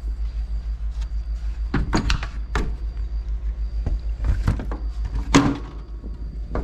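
A few sharp knocks and clunks, the loudest about five seconds in, over a steady low hum that pulses about five times a second.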